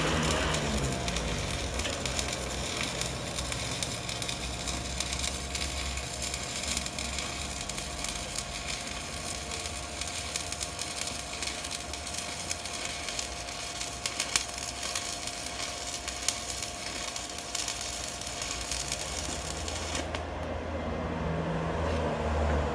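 Stick-welding arc crackling and sizzling steadily as a 1/8-inch electrode is run at about 100 amps from a Miller Maxstar 161 STL inverter welder; the arc cuts off about twenty seconds in.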